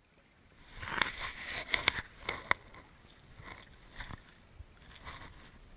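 Underwater sound picked up by a submerged camera: a quick cluster of sharp clicks and knocks about a second in, then fainter scattered clicks over a low water hiss.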